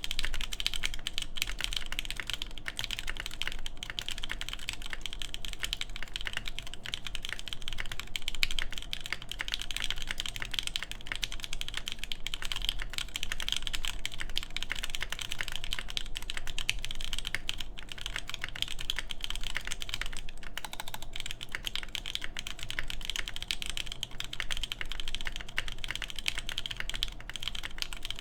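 Steady, continuous typing on an AKB Petrichor mechanical keyboard with Durock Lavender switches lubed with 205g0, DCS keycaps and a full FR4 plate: a dense stream of keystroke clacks without a break.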